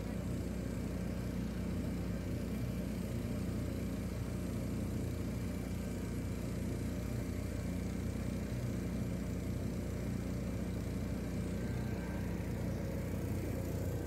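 A small boat's motor running steadily, a low, even drone that holds its pitch throughout.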